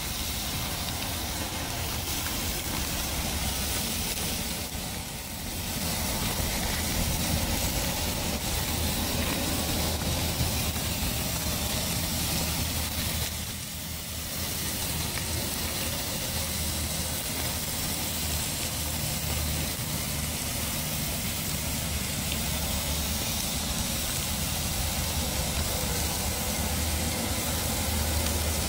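T-bone steaks sizzling on a grill grate: a steady hiss over a low hum, dipping briefly twice.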